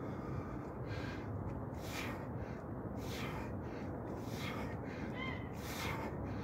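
A man breathing hard through push-ups, a forceful breathy exhale roughly every second or so in time with the reps, over a steady low background rumble. A couple of faint short chirps come near the end.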